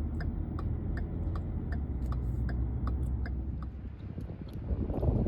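Car's hazard blinkers ticking about twice a second, with a steady low rumble beneath and a louder noise near the end.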